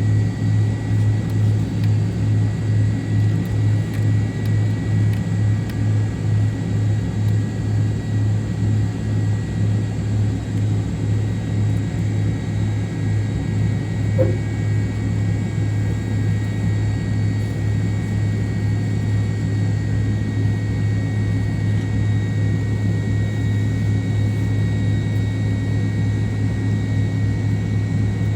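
Cabin drone of a McDonnell Douglas MD-88 airliner's rear-mounted jet engines running steadily, heard from inside the cabin: a strong low hum that pulses through the first half, with faint high steady tones above it. A single short click comes about halfway through.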